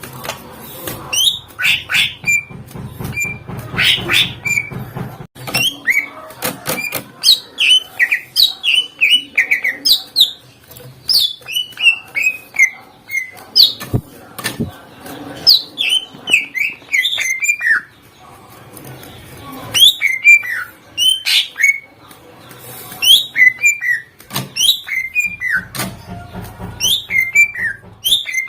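Greater green leafbird (cucak ijo) in loud, continuous song: rapid strings of sharp whistled notes that mostly fall in pitch, several a second, with only brief pauses. This is the busy, mimicry-filled song that keepers call 'gacor full isian'.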